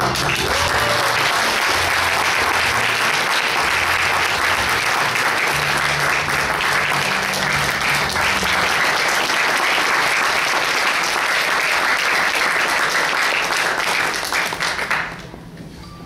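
Audience applauding steadily, dying away about fifteen seconds in.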